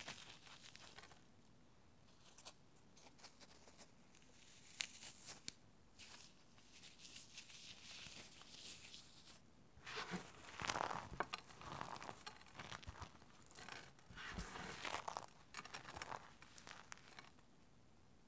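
Eggshells packed with dry, unsoaked floral foam being crushed and crumbled between the fingers: irregular crackling and crunching of breaking shell mixed with the crumbling of the foam. It grows busier and louder in the second half and stops about a second before the end.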